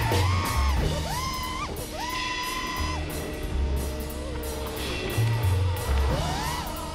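Rock music: a steady drum beat and bass under a lead line that slides between held notes.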